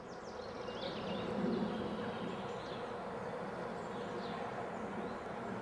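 Steady buzzing drone that swells over the first second or two, with a few short bird chirps above it.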